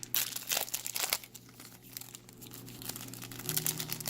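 Foil wrapper of a Yu-Gi-Oh! booster pack crinkling and tearing as it is opened by hand, in a string of short crackles.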